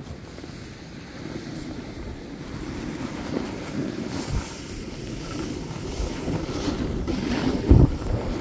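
Wind rushing over the phone's microphone and the hiss of sliding over snow, building as speed picks up, with a sharp knock near the end.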